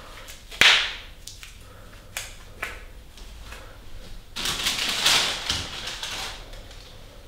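A white latex surgical glove, pulled on over a green one, snaps once sharply at the cuff about half a second in. A few faint clicks follow, then a longer rustle of about two seconds.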